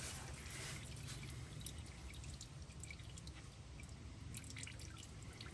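Engine oil dripping and trickling from a partly loosened oil filter into a drain pan: the filter is being drained before it is removed. Faint, with many small scattered drips.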